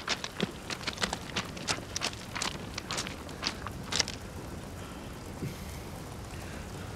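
Footsteps crunching on railway track ballast gravel, an uneven run of steps that stops about four seconds in, leaving a steady outdoor hiss.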